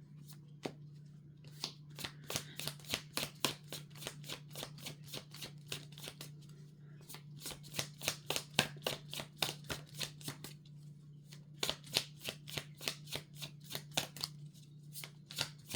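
A deck of tarot cards being shuffled by hand: rapid runs of light card snaps in three spells with short pauses between them. A steady low hum sits underneath.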